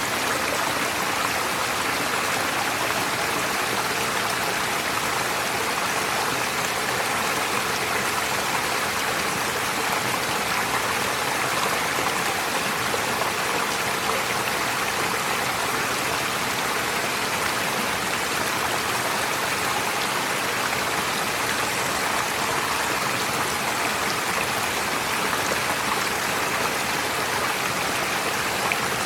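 Forest stream flowing: a steady, unbroken rush of water.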